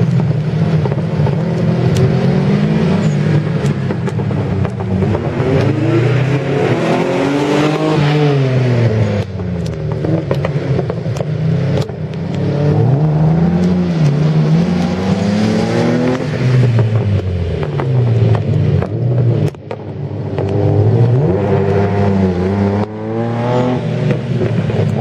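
Subaru Impreza rally car's flat-four boxer engine revving hard and falling back over and over as it accelerates and slows through a tight course, its pitch climbing and dropping with each burst.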